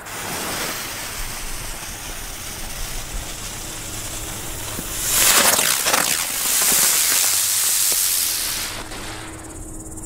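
Two PyroArt Admiral winged 'bird' spinner fireworks burning: a hiss that swells about five seconds in into a loud spraying hiss as they lift off, then dies away shortly before the end. Both ignite and fly properly.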